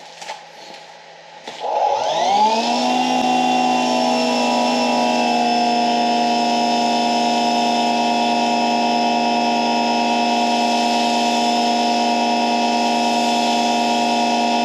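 EGO Power+ HPW3200 cordless pressure washer's electric motor and pump spinning up about two seconds in, then running at a steady high pitch on turbo mode while the foam cannon sprays.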